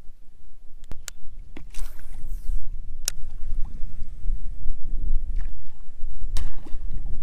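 Kayak moving across the water: an uneven low rumble of water and hull noise, with a few sharp knocks and a brief swish about two seconds in.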